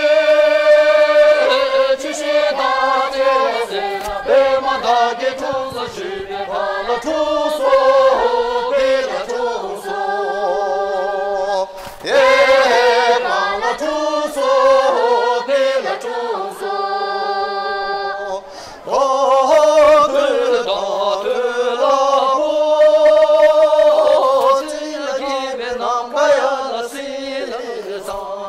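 Tibetan opera (lhamo) singing: long, held vocal phrases with wavering, sliding ornaments, broken by short pauses between phrases.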